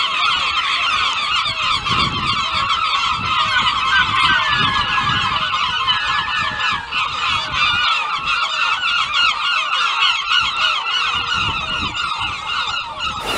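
A crowd of gulls calling over one another without pause: a dense chorus of short, repeated cries.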